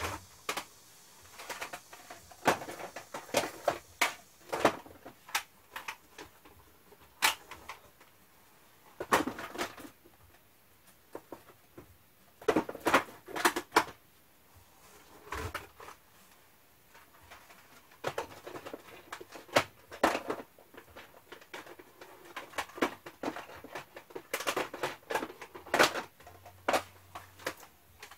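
Plastic cassette tape cases clicking and clacking together as handfuls of unopened tapes are lifted out of a cardboard box and stacked onto wooden shelves. The clicks come in irregular clusters with short pauses between them.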